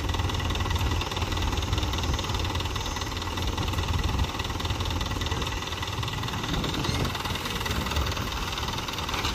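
Mahindra tractor diesel engine running steadily, with a continuous low engine sound and no sudden changes.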